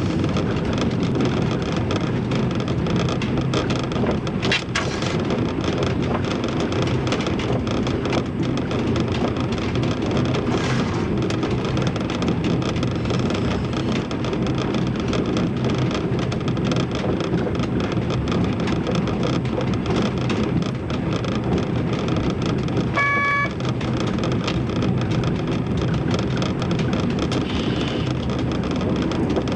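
Diesel railbus running along a branch line, heard from the driver's cab: a steady, even rumble and rattle of engine and wheels on the track. About two-thirds of the way through comes one short horn toot.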